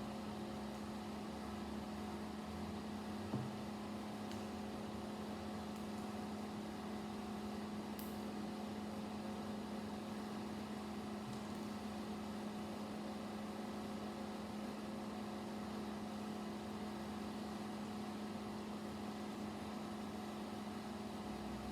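Steady low electrical hum with a constant tone and room noise, broken only by a faint click about three seconds in and another near eight seconds.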